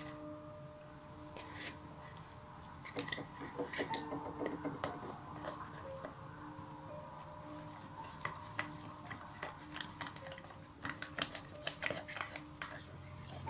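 A stirring stick tapping and scraping against the sides of a clear plastic bucket as a clear slime mixture is stirred, in irregular clicks that come thickest from about three seconds in.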